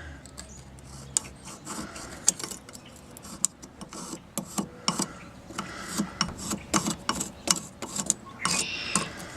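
Irregular light clicks and taps of measuring and marking tools handled against steel flat stock while it is laid out, with a brief scratch about eight and a half seconds in, like soapstone marking the steel.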